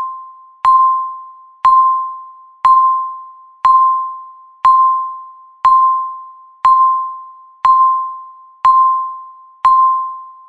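Countdown timer beep sounding once a second: a single clear electronic tone that starts sharply and fades away before the next one, marking off each second.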